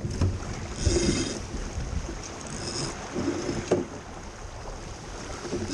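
Water rushing and splashing along a racing sailboat's hull, with wind rumbling on the microphone and a couple of sharp knocks from the boat's gear.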